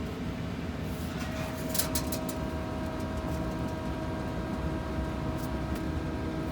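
Small condensate pump motor starting about two seconds in after a brief clatter, then running with a steady hum over a low steady rumble; it runs, though it is unclear whether it is pumping any water.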